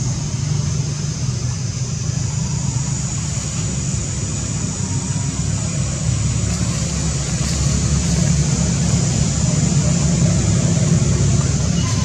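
Steady outdoor background noise: a continuous low rumble under a high, steady hiss, getting a little louder about halfway through.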